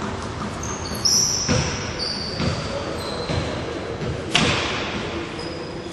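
Basketball bouncing on a gym floor in a large hall, with several separate thuds, the loudest about four and a half seconds in, and short high-pitched squeaks, over a steady background murmur of voices.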